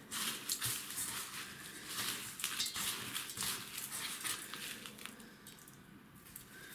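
Hands pressing a herring fillet into a coarse salt curing mix in a stainless steel bowl: a gritty crunching and rustling of the granules, with small scrapes against the bowl, thinning out over the last couple of seconds.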